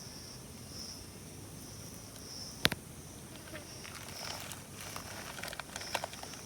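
An insect chirping in short, high-pitched pulses, a little more than one a second, with scattered small clicks and rustles and one sharp click a little under three seconds in.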